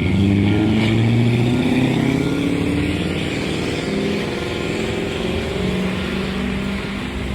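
A motor vehicle's engine revving, its pitch climbing over the first couple of seconds and then holding fairly steady.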